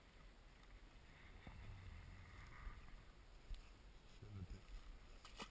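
Near silence: a faint low rumble with a few soft knocks, from handling in a small boat.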